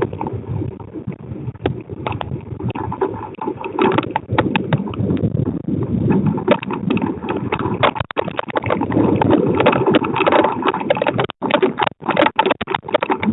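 Storm wind and rain on a security camera's outdoor microphone: a rough, rushing noise crowded with sharp clicks, cutting out briefly twice near the end.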